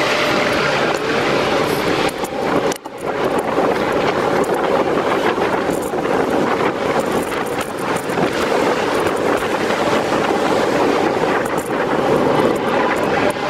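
Steady rushing noise of a bicycle ride through city traffic: wind on the microphone mixed with passing vehicles. The sound cuts out briefly about three seconds in.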